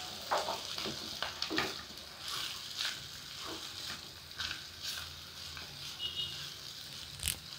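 Wooden spatula stirring soaked sago pearls (sabudana) with potato in a frying pan: irregular scrapes and taps against the pan, with one sharper knock near the end, over a light sizzle on a low flame.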